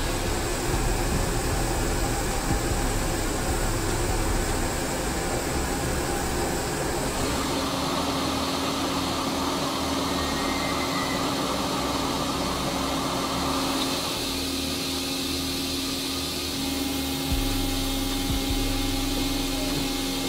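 Steady mechanical roar and hiss of foundry machinery, with a low hum underneath. The noise changes abruptly in tone three times.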